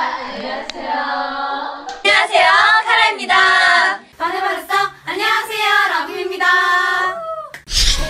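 Groups of young women chanting their K-pop group greetings together in a drawn-out, sing-song unison, one group after another.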